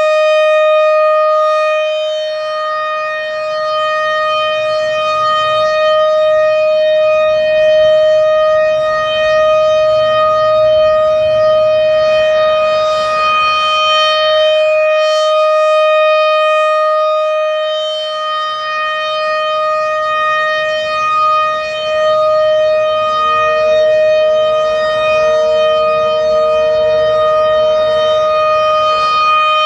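American Signal RM-130 rotating outdoor warning siren sounding a steady-pitch alert tone, very loud at close range. Its loudness swells and dips slowly as the rotating horn sweeps past, and a fainter, lower tone joins in near the end.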